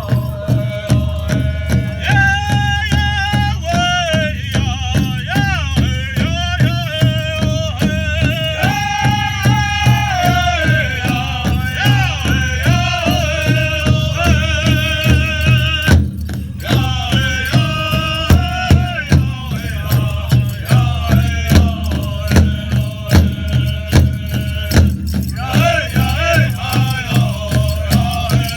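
Pow wow drum group singing in high voices over a steady drumbeat on a big drum, with a rattling jingle.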